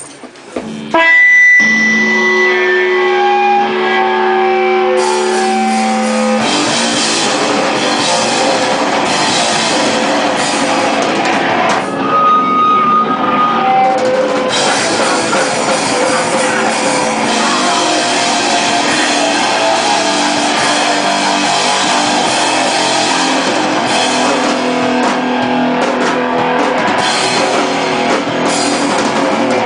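Hardcore rock band playing live and loud: a new song opens about a second in with a held, ringing guitar chord, then drums, bass and electric guitars come in together about six seconds in and play on, with a short let-up around twelve seconds where a single held guitar note stands out.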